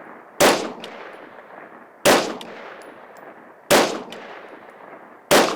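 Tactical rifle with a 20-inch free-floated barrel and a muzzle brake firing four evenly paced shots, about a second and a half apart. Each shot has a long echo that fades away.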